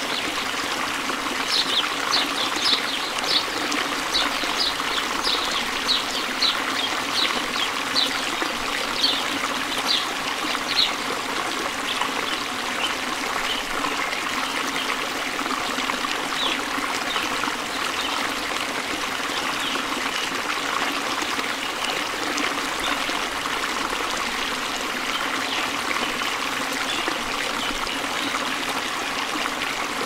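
Water trickling and splashing steadily, like a small stream. Over it, a bird repeats short high chirps about twice a second for the first ten seconds or so, then sings fainter and more sparsely.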